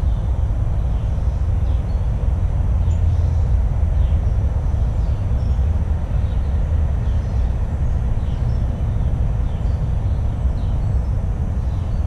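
A steady low rumble fills the background, with faint short bird chirps repeating about once a second over it.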